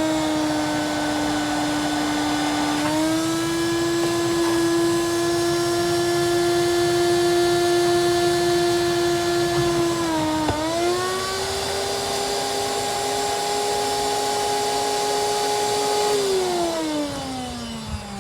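Shop vacuum sucking up water, its motor whining steadily. The pitch steps up about three seconds in, dips sharply and recovers about ten seconds in, then falls steadily near the end as the motor slows.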